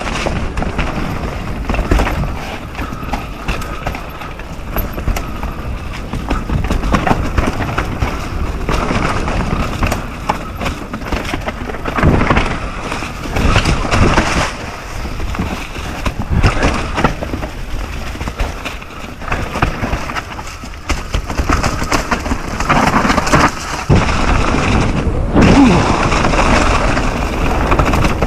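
Mountain bike riding down a rough enduro trail: tyres rolling and skidding over dirt and rocks, with many sharp knocks and rattles from the bike hitting bumps, louder in spells.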